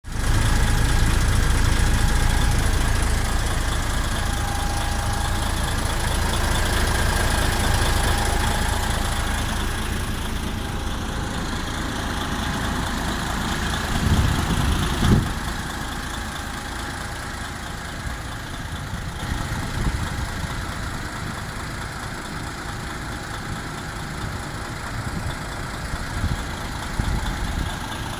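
DAF XF 460 truck's six-cylinder diesel engine running steadily, louder for the first ten seconds or so and then settling to a quieter idle, with a couple of low thumps about halfway through.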